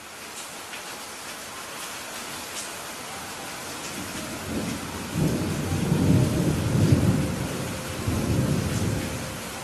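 Steady rain, with a rumble of thunder rolling in about halfway and easing off near the end.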